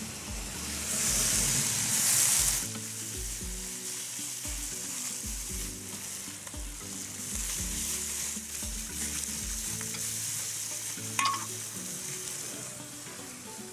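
Pork sausages sizzling on a charcoal grill grate over glowing embers: a steady hiss, louder in the first couple of seconds, with one sharp crack about eleven seconds in.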